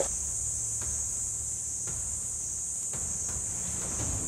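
Steady high-pitched chorus of forest insects, with a few faint ticks.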